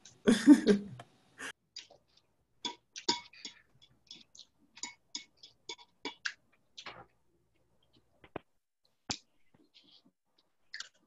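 Computer keyboard keys clicking sparsely and irregularly, after a brief louder noise in the first second.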